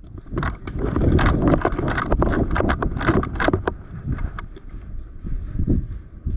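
Wind buffeting and rumbling on the microphone, with a dense run of sharp clicks and knocks over the first few seconds that thins out later.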